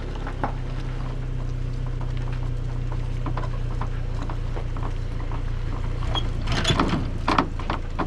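Boat motor running steadily with a low, even hum. Scattered light clicks and knocks sound over it, with a short burst of clattering about six and a half to seven and a half seconds in.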